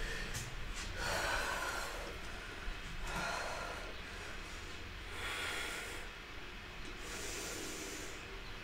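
A woman breathing audibly and slowly, four long breaths about two seconds apart, over a faint low hum.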